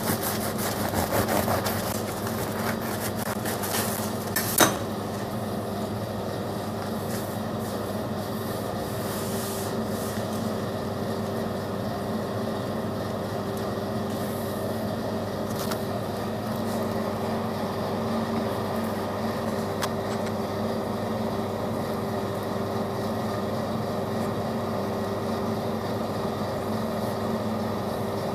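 Crisp crust of a freshly baked loaf crackling and rasping as it is opened, with a sharp click about four and a half seconds in, over a steady machine hum from the kitchen.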